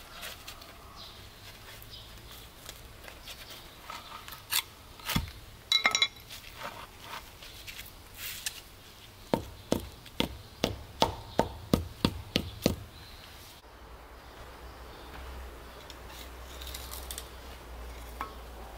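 Stones knocking and clicking against each other and against stone as they are handled, with a short ringing clink and then a quick run of about a dozen sharp taps.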